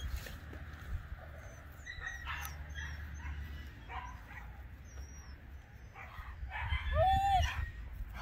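An American Pit Bull Terrier gives one long, high whine about seven seconds in, over a low steady rumble.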